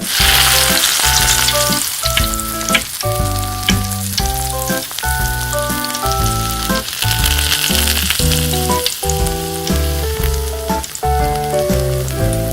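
Food sizzling and crackling as it fries in hot oil, starting suddenly and cutting off near the end, over background piano music.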